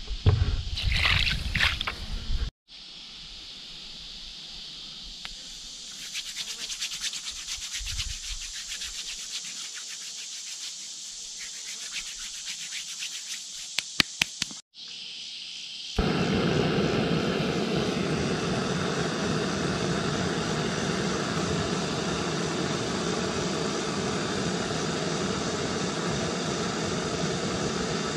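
A small camp stove burner running with a steady rushing hiss through the second half. Before it, quieter rustling and a few sharp clicks.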